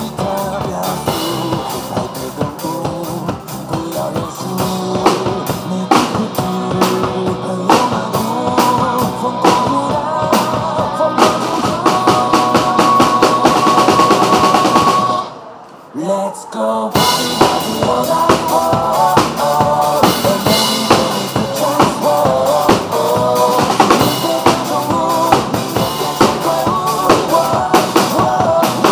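Acoustic drum kit played live with bass drum, snare and cymbals, over the backing track of a Mandopop rock song. About halfway through, the music drops out for a second or so, then kicks back in.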